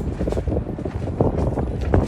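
Wind gusting across the microphone, a loud, uneven low rumble that flutters irregularly.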